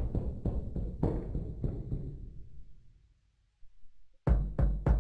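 A Maschine kick drum sample triggered from Akai MPK Mini keys, played as one separate hit after another, each key giving the same kick pitched a half step apart. This is the sign of the keyboard playing only the one highlighted sound instead of the group's different drums. The hits come about three a second and die away about two seconds in, and a quicker run starts near the end.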